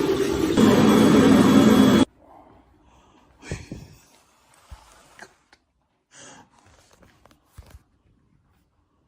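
Toilet flushing with a loud rush of water that cuts off suddenly about two seconds in, followed by a few faint knocks and rustles.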